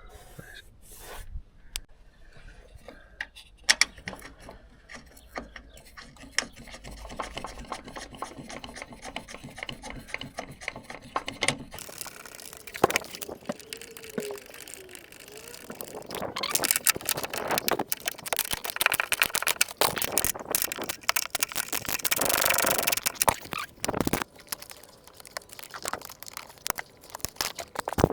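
A run of clicks, knocks and scraping from hands-on mechanical work, growing busier and louder about halfway through.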